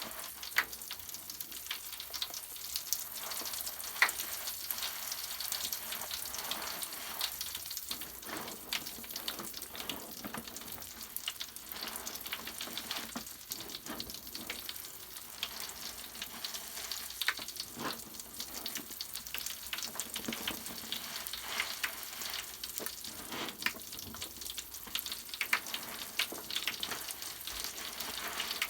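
Bath foam crackling as its many tiny bubbles pop: a dense, steady fizz of small crackles.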